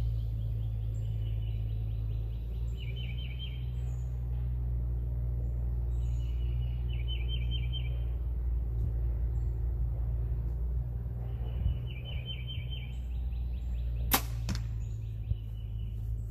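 Obsession Defcon HZ7 compound bow shot about fourteen seconds in: a single sharp crack as the string is released, with a fainter knock a split second later. Before the shot, a bird's short trilled song repeats every few seconds over a steady low rumble of background noise.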